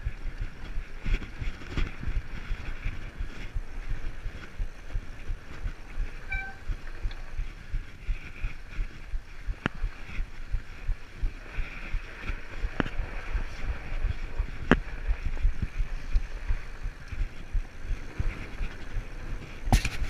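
Fatbike riding along a packed-snow trail: a steady low rumble from the fat tyres and frame jolting over the bumpy snow, with a few sharp clicks from the bike and a louder knock near the end.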